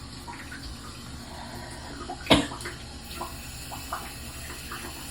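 Steady running water, with one sudden sharp noise a little over two seconds in.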